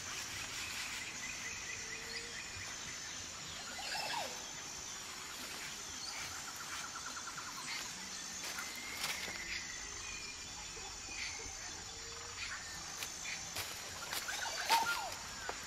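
Forest ambience: a steady high-pitched insect buzz with bird chirps and short trills throughout, and scattered sharp snaps or clicks, the loudest near the end.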